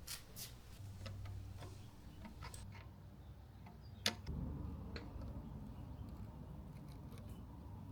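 A few scattered light clicks and taps, one sharper click about halfway through, over a faint low hum.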